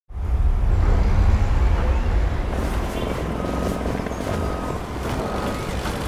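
Low rumble of heavy industrial machinery, loudest in the first couple of seconds. From about halfway in, a vehicle's reversing alarm sounds short, even beeps about once a second.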